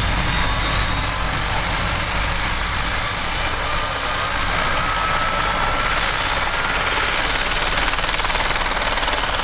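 Helicopter turbine running, with a steady low rotor beat and a thin whine that rises slowly in pitch.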